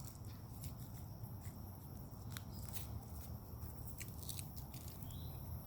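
Faint footsteps on a path with scattered small crunches and clicks, over a low steady rumble.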